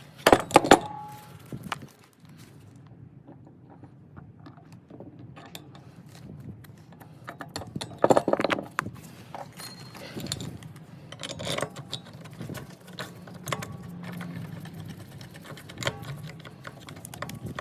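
Metal tools and parts clinking and rattling in short, irregular bursts, with the loudest clatter about eight seconds in, over a faint steady low hum.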